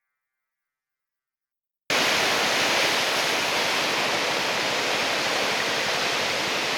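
Steady rushing noise of big breaking surf, cutting in suddenly about two seconds in after silence.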